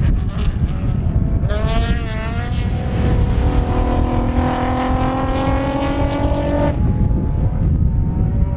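Racing car engines on a circuit: one engine revving up and down briefly, then a car accelerating with its engine note climbing steadily before it cuts off suddenly near the end. Strong wind buffets the microphone with a rumble throughout.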